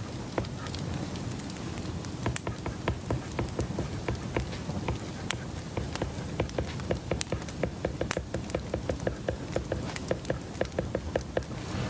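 Quick, light clicks and taps, as of study at a desk, turning into a fast, even run of several clicks a second about halfway through, over a steady low hum.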